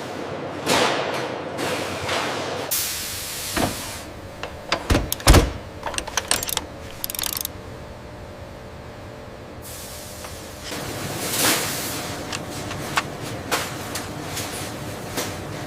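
Factory work noise: swelling whooshes with a run of sharp metal knocks and clanks, the loudest about five seconds in, then a calmer stretch before more whooshing and scattered clicks.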